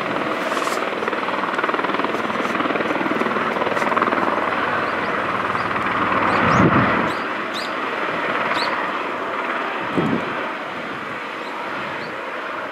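Airbus Helicopters EC130T2 (H130) running on the ground, its Arriel 2D turboshaft and rotors turning: a steady rotor and turbine rush, a little quieter in the second half. Two brief low rumbles come about halfway and again a few seconds later.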